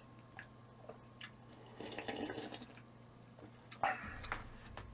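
Quiet eating sounds: small wet mouth and utensil clicks, with short wet slurping bursts about two seconds in and again near four seconds.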